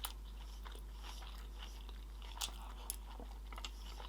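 Close-miked chewing of sushi rolls, with a few sharp crisp clicks and crunches scattered through it, over a low steady hum.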